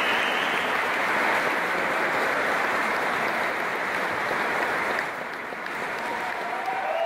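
Crowd applauding: dense clapping that eases off about five seconds in.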